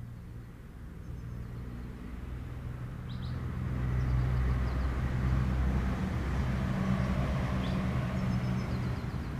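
Engine hum of a passing motor vehicle, growing louder about three seconds in and then holding steady. A few faint, high bird chirps are heard over it.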